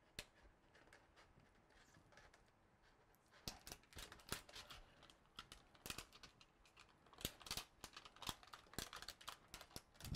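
Paper backing of an adhesive BuildTak sheet being peeled back and folded by hand: faint at first, then a quick run of sharp crackles and rustles from about three seconds in.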